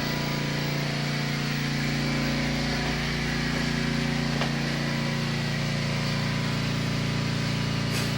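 An engine running steadily at a constant speed, a low even hum with no revving.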